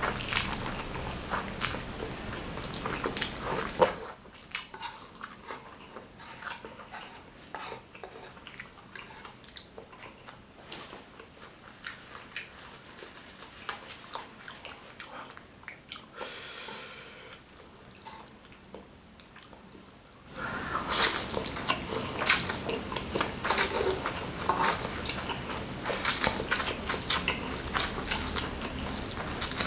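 Close-miked chewing and wet mouth sounds of someone eating spicy instant noodles, with many sharp smacks. It goes quieter for a long middle stretch, with a short hiss-like noise near the middle, and the smacking comes back louder and denser in the last third.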